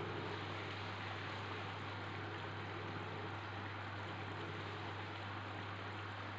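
Fish curry simmering in a wok on a portable stove: a steady low hiss with a constant low hum underneath.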